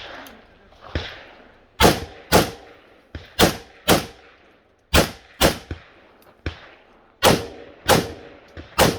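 Rifle shots fired on a range, about a dozen in irregular succession, many in pairs roughly half a second apart, each with a short echo. Some shots are fainter than others.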